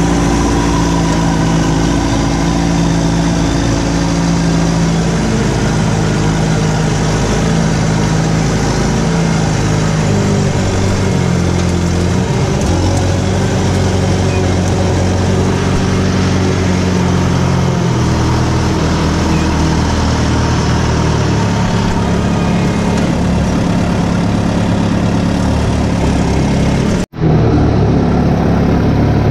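Skid-steer loader's engine running hard as heard from the cab, its pitch stepping up and down as the machine drives and works. The sound drops out for an instant near the end, then the engine noise resumes.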